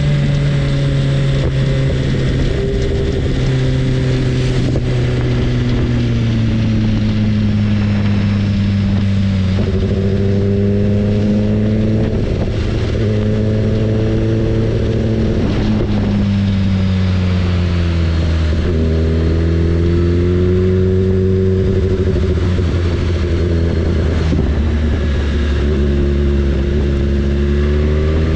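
BMW S1000RR inline-four engine running under way, its pitch climbing and dropping several times as it accelerates and eases off.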